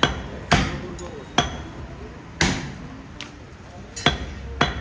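Heavy butcher's knife chopping beef on a wooden chopping block: about five sharp chops at uneven intervals, two of them close together near the end.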